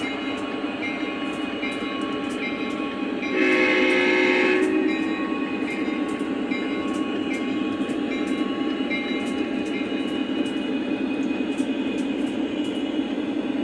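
Sound system of a Lionel Legacy Conrail SD70MAC O-gauge model locomotive: a steady diesel engine rumble, with one horn blast about three seconds in lasting about a second and a half. Sharp clicks of the wheels over the track joints come at irregular intervals as the train rolls by.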